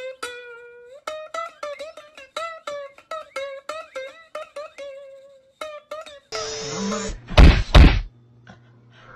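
Background music of quick plucked-string notes. About six seconds in the tune stops and a noisy stretch follows, with two loud thumps about half a second apart.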